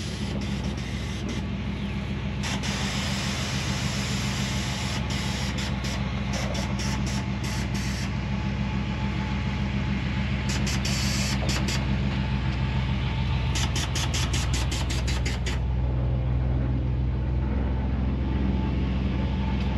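Chevy short-bed pickup's engine running steadily at idle, a low even hum, with clusters of short sharp clicks over it.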